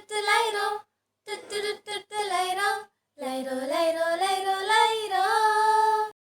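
A high voice, most like a child's, singing a short unaccompanied melody: three brief phrases and then one longer, held phrase that stops abruptly near the end.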